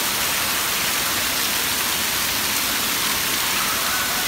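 Steady hiss of splash-pad water jets spraying and falling into shallow water.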